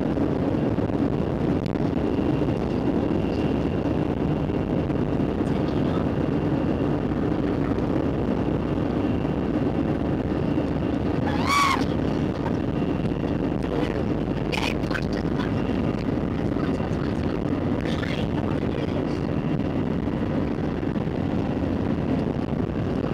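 Steady cabin noise of an Airbus A321 taxiing, a low engine and air-conditioning rumble and hum heard from a window seat. A brief pitched sound cuts through about halfway.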